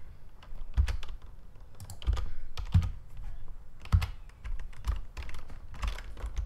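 Computer keyboard keys and mouse buttons being pressed: about ten irregular sharp clicks, each with a dull low knock.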